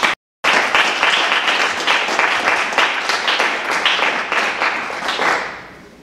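Audience applauding, starting just after a brief cut-out in the sound and dying away near the end.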